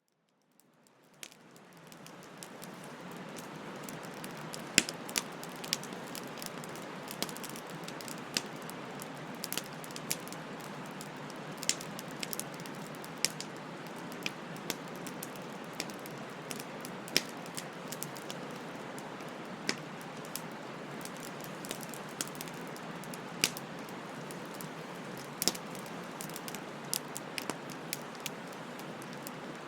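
Wood fire burning with a steady hiss and frequent sharp crackles and pops of burning wood. It fades in from silence over the first few seconds.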